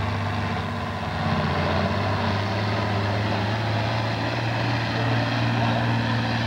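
John Deere farm tractor's diesel engine running hard under heavy pulling load, a steady deep drone. It eases slightly about a second in, then holds even.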